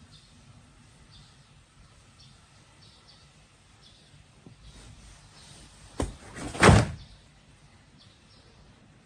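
A sharp knock about six seconds in, quickly followed by a louder, rougher bang, like something hitting or sliding against a door, over faint high chirps.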